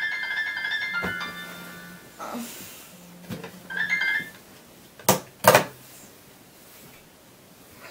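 Electronic bedside alarm sounding a bright, repeating melody of beeping notes that fades out, sounds again briefly about three and a half seconds in and stops as it is switched off. About five seconds in come two loud thumps half a second apart.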